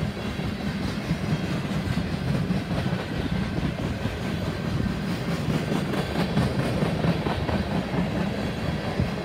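Tank cars of a freight oil train rolling past: a steady rumble of steel wheels on the rails, with repeated clicks as the wheels pass over the track.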